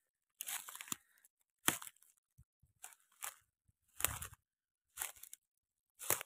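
Footsteps of a barefoot walker crunching through dry, burnt stubble and twigs, about eight uneven crunches of snapping and rustling debris.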